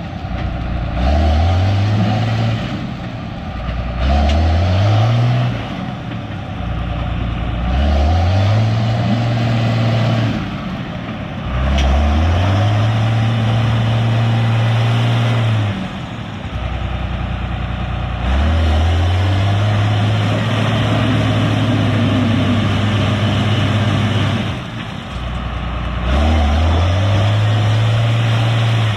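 A stuck four-wheel-drive truck's engine revs over and over as its wheels dig in. There are about seven revs, each rising quickly, held for a second to a few seconds, then dropping back.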